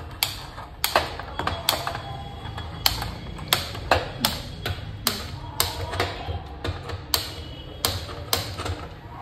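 Irregular sharp taps and clinks, about fifteen in all, of a kitchen utensil knocking against a cooking pan, over faint background music.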